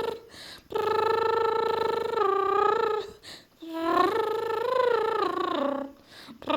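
A cat yowling in two long, drawn-out, wavering wails of about two seconds each, separated by short pauses.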